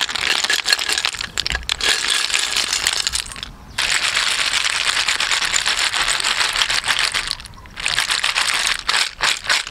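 Boiled river snail shells clattering against each other and a plastic colander as they are tipped out of a pot and shaken. The dense clicking breaks off briefly twice, and a few separate clicks come near the end.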